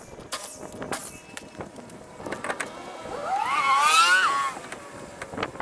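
Scattered metal clicks and knocks from wheel work, then about three seconds in a motor's whine rises in pitch, wavering, for about a second with a hiss over it, and drops away.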